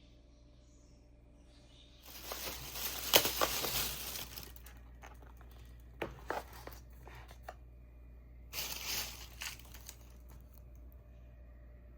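Crinkling and rustling of something handled by hand, in a long burst and then a shorter one, with a few sharp clicks in between.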